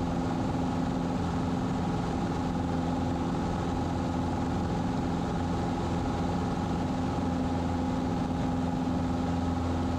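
Cessna 150's Continental O-200 four-cylinder engine running steadily at climb power just after takeoff, an even drone heard from inside the cabin.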